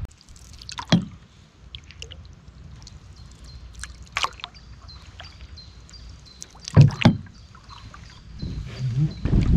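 Canoe paddle strokes on calm water: splashes and drips with short knocks, one about a second in and the loudest pair about seven seconds in. A bird repeats short high notes in the background.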